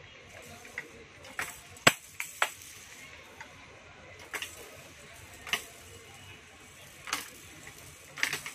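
Sharp hard-plastic clicks and knocks from a stacking spiral ball-drop tower toy, its pieces handled and fitted and small plastic balls dropped in to rattle down the ramps. The knocks come singly, a second or so apart, the loudest about two seconds in, with a cluster near the end.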